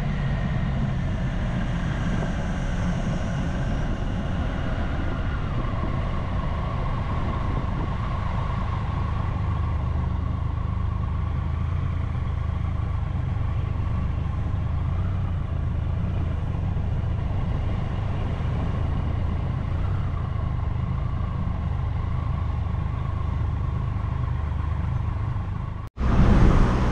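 Triumph Tiger 1200 three-cylinder motorcycle engine running at low speed. Its note falls over the first few seconds as the bike slows, then holds steady and low. The sound cuts off abruptly near the end.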